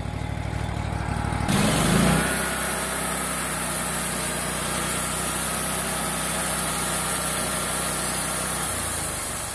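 Wood-Mizer LT40HD G25 band sawmill running steadily. About a second and a half in, the band blade starts with a high hiss and saws a steak off a venison loin. The engine note changes near the end.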